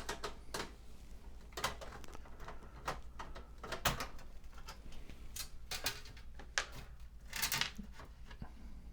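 Scattered light clicks, knocks and a short scrape near the end as a PC case's sheet-metal motherboard tray is unscrewed and worked loose by hand.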